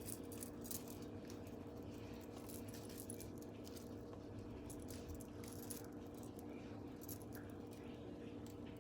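Faint scattered clicks and light rattling of hands working in a tray of seasoned chicken wings, tossing and mixing them, over a steady low hum.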